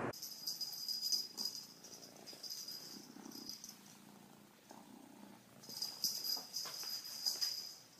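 Sounds of a domestic cat, with a high, steady ringing tone that comes and goes in short spells and is loudest about six to seven and a half seconds in.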